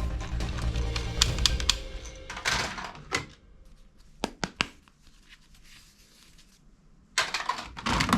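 Plastic clicking and rattling from toy guns being handled: a dense clatter in the first two seconds, a few single clicks, then another burst of rattling near the end.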